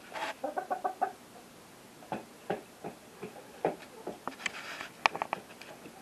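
Hens clucking: a quick run of short clucks at the start, then scattered single clucks and small clicks.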